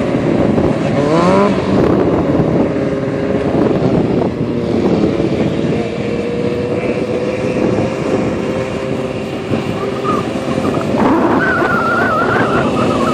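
Stunt sport bike's engine running and being revved during slow-speed stunt riding, the revs rising about a second in. A wavering high squeal comes in near the end.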